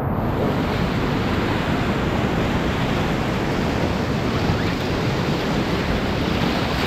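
Whitewater rapids rushing steadily around a canoe running through them, with wind on the microphone.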